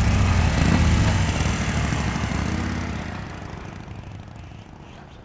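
Motorcycle engine revving as the bike pulls away, then fading steadily into the distance.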